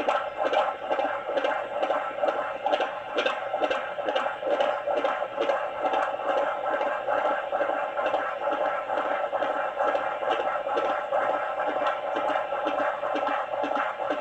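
Fetal heartbeat picked up by a handheld fetal Doppler heart monitor: a fast, regular pulsing, a little over two beats a second, over a steady hiss.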